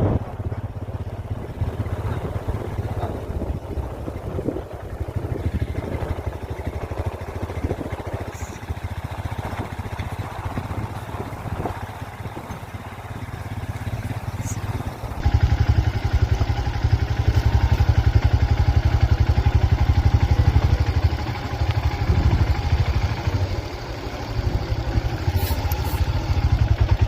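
A motor vehicle's engine running steadily, heard from on board along with road noise. About halfway through, the sound cuts to a louder, fuller run.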